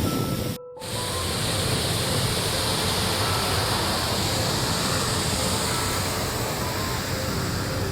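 Waterfall rushing, a steady even roar of falling water, broken by a brief sudden dropout under a second in.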